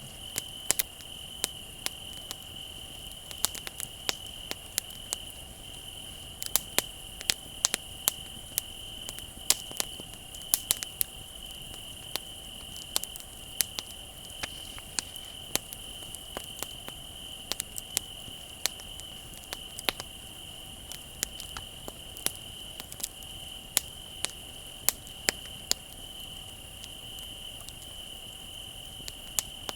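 Wood fire crackling with frequent irregular sharp pops, over the steady high trill of crickets.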